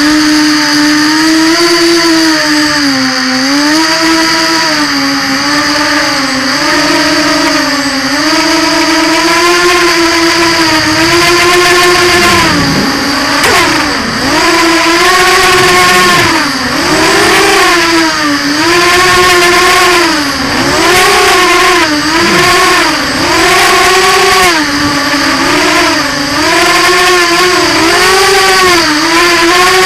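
Brushless motors and 5-inch props of a 200-size FPV racing quadcopter on 3S, a loud whine rising and falling in pitch every second or two with the throttle, over a steady high-pitched tone.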